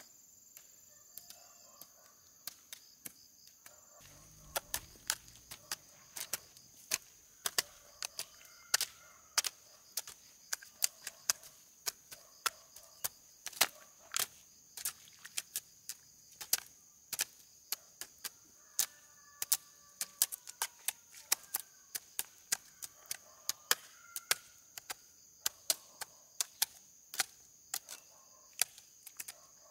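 A long run of sharp, irregular knocks, roughly two to three a second, much louder from about four seconds in, over a steady high insect chirring.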